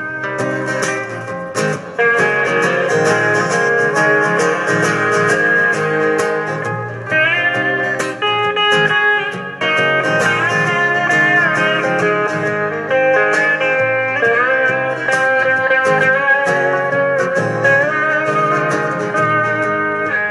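Instrumental break in a live folk-country song: a lead guitar plays gliding, bending notes over several strummed acoustic guitars.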